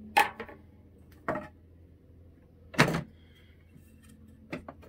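Wooden table saw sled being handled onto a small benchtop table saw: three sharp wooden knocks against the saw table, near the start, about a second in and just before three seconds, then a few light clicks near the end as it settles into the miter-slot runners. The saw is not running.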